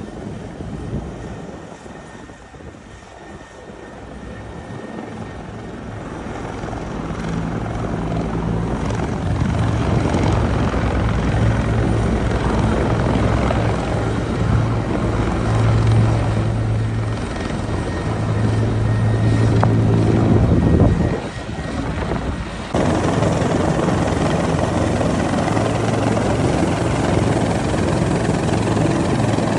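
Rescue helicopter's rotor and engine running close by, a steady low throbbing hum that grows louder over the first several seconds. The sound drops briefly and then jumps back abruptly about 23 seconds in.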